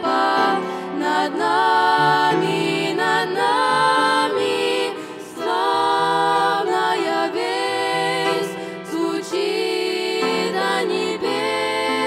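A girls' vocal trio singing a slow hymn in harmony into microphones, with sustained low notes beneath.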